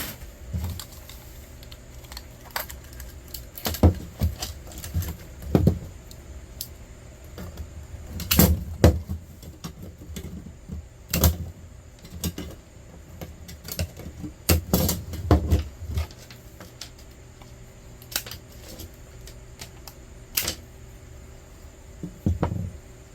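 Scrap metal being handled and pulled apart: irregular metallic clinks, clanks and knocks, some in quick clusters, over a low steady hum.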